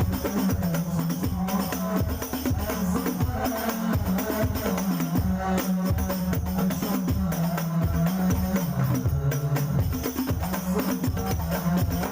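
Hadroh ensemble playing an instrumental passage: frame drums and a deep bass drum beating a fast, dense rhythm, with bright jingling hand percussion on top.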